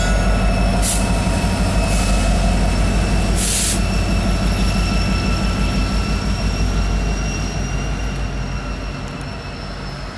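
Norfolk Southern SD70ACe diesel locomotives running past, a deep steady engine drone with a thin, steady high-pitched wheel squeal over it. Short hisses come three times in the first few seconds. The whole sound fades over the last few seconds as the locomotives move away.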